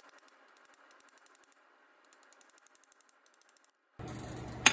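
Faint, rapid, even ticking for about four seconds. Then a low hum comes in, and at the very end a sharp hammer blow rings on steel: the first strike driving an Allis-Chalmers WD transmission shaft and bearing out of the housing.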